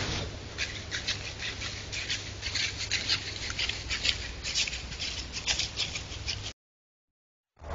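Trail camera night recording: irregular soft crackles and rustles, several a second, over the camera's steady low electronic hum, cutting off abruptly when the clip ends.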